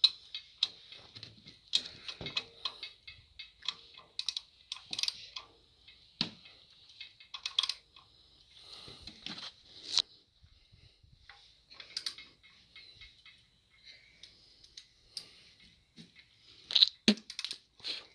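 Hand ratchet with a socket extension clicking in irregular short runs as bolts are run down on an aluminium engine adapter plate, with light metal clinks between, and a louder clunk near the end.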